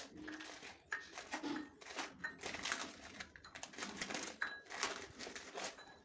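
Plastic wrapper of an Oreo biscuit packet crinkling as the biscuits are pulled out, with light clicks as they are set into a glass bowl, in short irregular bursts.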